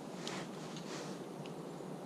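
Faint workshop handling noises: a few soft scrapes or rustles and a small click about one and a half seconds in, over a low steady hum.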